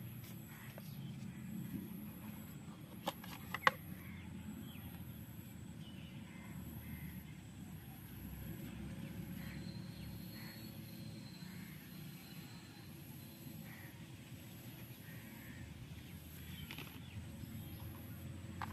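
Outdoor ambience with a steady low rumble and faint bird calls, broken by a few sharp clicks from handling the cardboard box and the plastic phone case, the loudest about three and a half seconds in.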